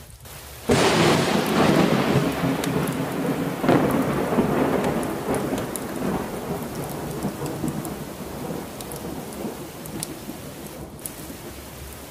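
A thunderclap breaks suddenly about a second in, surges again a few seconds later, then rumbles and fades slowly into steady heavy rain.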